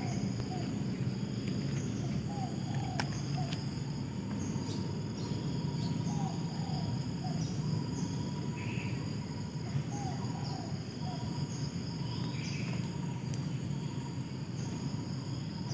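Chorus of insects trilling steadily at high pitch, one of them in a rapid pulsing buzz, over a steady low rumble. Small groups of short, lower chirping calls come every few seconds.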